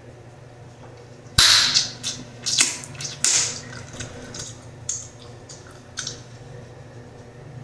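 Bubblegum snapped loudly in the mouth about a second and a half in, followed by about five smaller gum snaps and chewing clicks over the next few seconds.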